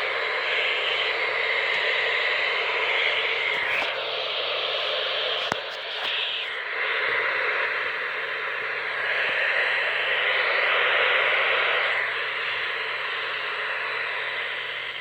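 Weather radio static: a steady hiss of noise on the radio channel, with a couple of faint clicks.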